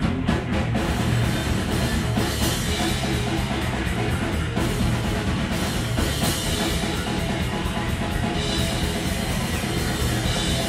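Metal band playing live: a fast drum kit with heavy cymbal wash under loud distorted guitars, a continuous dense wall of sound.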